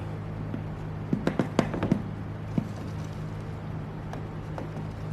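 Light plastic clicks and taps from handling a hair dryer and a baby powder bottle: a quick cluster about a second in and one more click a little later, over a steady low hum.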